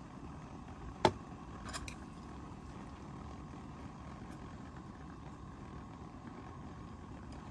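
Chopsticks and a clay hot-pot dish: one sharp knock about a second in, then a few light clicks, over a steady low hiss from the pot simmering on a lit butane camp stove.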